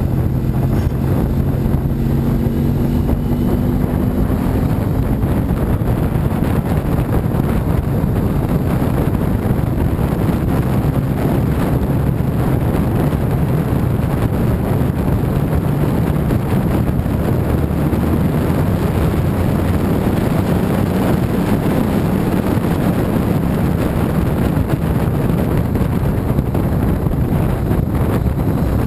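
Steady wind noise on the microphone of a camera riding on a moving motorcycle, with the motorcycle's engine running underneath; the engine note rises slightly in the first few seconds.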